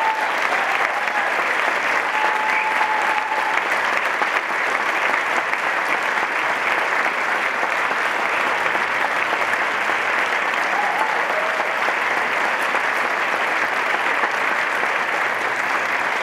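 Theatre audience applauding steadily through the curtain call.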